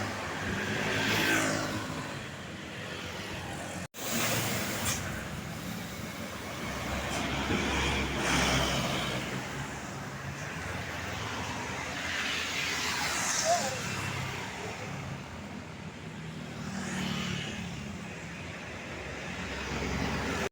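Road traffic: several vehicles pass one after another, the engine and tyre noise swelling and fading with each pass. The sound drops out briefly about four seconds in.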